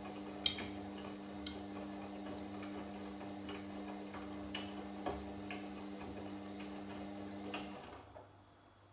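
Washing machine drum turning: a steady motor hum with light clicks and knocks about once a second as the laundry tumbles. Near the end the motor stops and the drum goes quiet.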